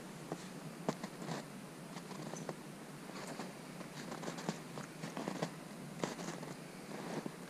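Footsteps crunching in snow, irregular and unhurried, with a scatter of sharp crunches and clicks.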